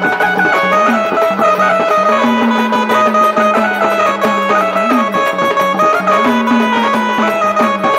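Instrumental Marathi gondhal folk music: a melody stepping between held notes over a steady low tone and a quick, even rhythm, with no singing.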